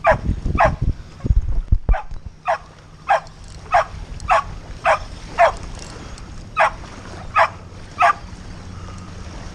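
A dog yipping over and over in short, high yelps, about one every half second, with a brief pause near the middle and stopping shortly before the end.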